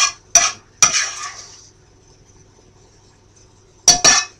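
Spoon clinking and scraping against a frying pan as sauce is scooped out of it. There are three quick clinks at the start, the last trailing into a short scrape, and then two more clinks near the end.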